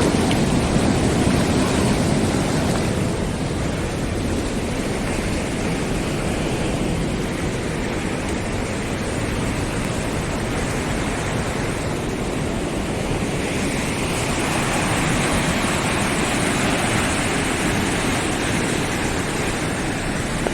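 Steady rushing of a river swollen by flood, the fast water running high; the sound brightens slightly about two-thirds of the way through.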